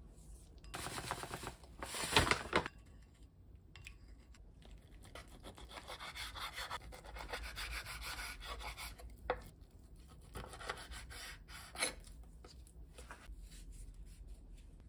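A spoon scraping and stirring in a glass bowl of sauce, loudest about two seconds in, then a knife cutting raw chicken thigh on a wooden cutting board, rasping through the meat, with a few sharp knocks of the blade on the board.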